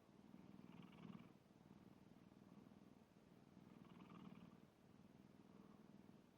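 Domestic cat snoring faintly in its sleep: two slow, buzzing breaths about three seconds apart, with a softer one between.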